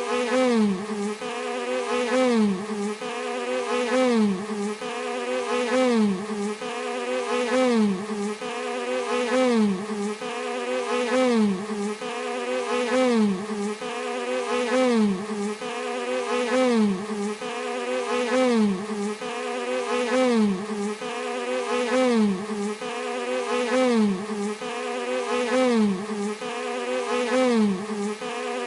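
Bee buzzing steadily, its pitch wavering up and down about one and a half times a second and swelling in loudness about every two seconds in an even, repeating pattern.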